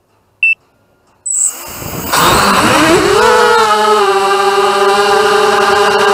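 A short electronic beep, then a racing quadcopter's electric motors and propellers spinning up: a rush of noise followed by a whine that rises in pitch and then holds steady as it flies.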